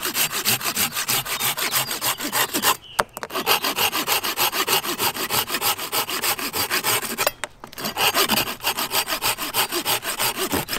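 A stedi folding pocket saw with a straight blade cutting through a small aspen branch in rapid back-and-forth strokes. It pauses briefly twice, about three seconds and about seven and a half seconds in.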